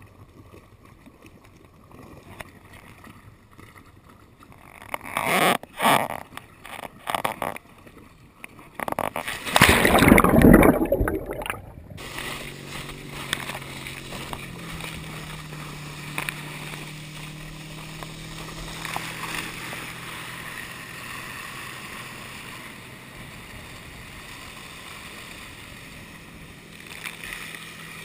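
Scattered splashes and knocks of water, then a loud rush of water for a couple of seconds as the water skier is pulled up. After that a towboat's engine runs steadily ahead, its note rising a little soon after, over the steady hiss of the ski cutting the water.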